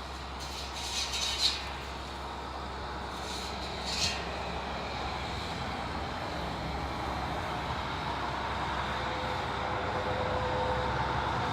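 A large vehicle's engine running steadily, with the noise slowly growing louder toward the end. Two short, high hissing squeaks come about a second in and about four seconds in.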